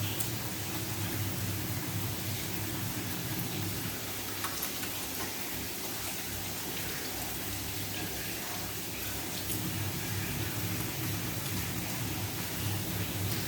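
Tap water running steadily onto hands and into a sink during handwashing.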